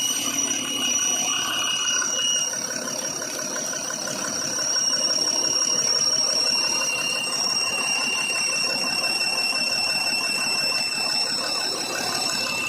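Truck engine running steadily with a fast, even pulsing and steady high-pitched tones above it, the sound of a leaking exhaust.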